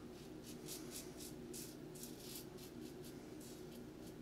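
Double open comb safety razor (a Yaqi) scraping through lathered stubble in short, rapid strokes, a crisp rasp about four or five times a second.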